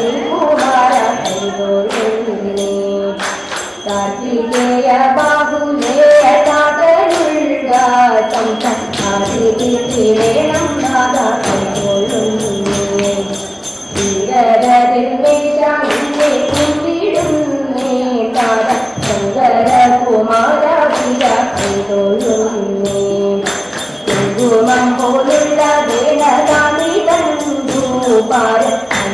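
Women singing a Thiruvathira kali song into a microphone, with sharp hand claps keeping a steady beat under the melody.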